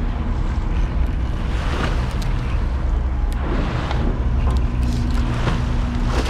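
Boat engine running steadily with a low hum, under wind on the microphone and water sloshing along the hull.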